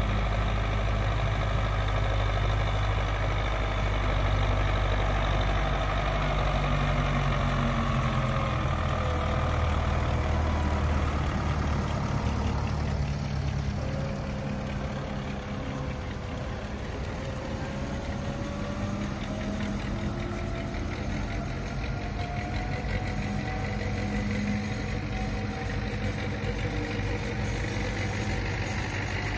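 Belarus MTZ tractor's diesel engine running as it hauls a loaded cassava trailer, loudest for the first dozen seconds, then a little softer, its pitch dipping and climbing again in the second half.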